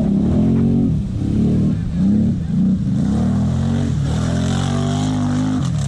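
A vehicle engine revving in repeated quick blips of the throttle, then holding a steadier, higher note for the last couple of seconds.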